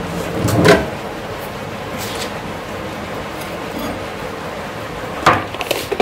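Microwave oven door unlatched and pulled open with a click about a second in. Near the end, a glass mug is set down on a granite countertop with a couple of knocks.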